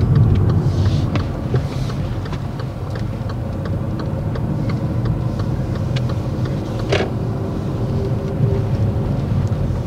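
Car running and rolling slowly, heard from inside the cabin: a steady low rumble of engine and tyres, with scattered light clicks and one sharper knock about seven seconds in.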